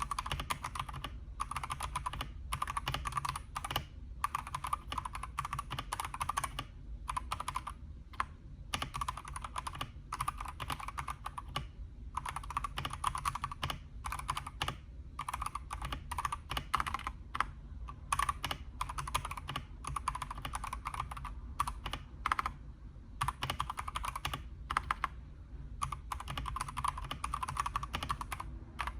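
Typing on a Redragon K668 mechanical keyboard: a fast, steady stream of key clacks, broken by brief pauses every few seconds.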